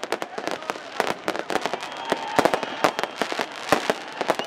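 Fireworks and firecrackers going off in a rapid, irregular string of sharp bangs and crackles.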